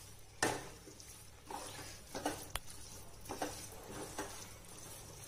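Wooden spatula stirring a thick, crumbly vegetable, daliya and paneer mixture in a nonstick pan, with soft scrapes and knocks against the pan about once a second.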